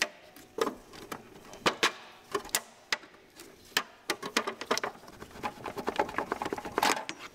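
Irregular clicks, taps and knocks of a Volvo 850 engine's upper cover being worked loose and lifted out by hand, with a quick run of clicks near the end.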